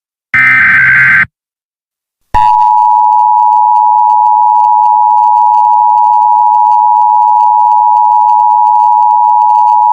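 Emergency Alert System alert tones. The last burst of a SAME data header, harsh digital warbling tones, stops about a second in. After a short gap the steady two-tone EAS attention signal (853 and 960 Hz) starts about two and a half seconds in and is held loud and unbroken.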